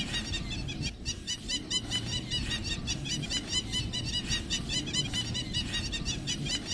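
A dense chorus of many short, high, repeated animal calls, several a second, over a steady low rumble.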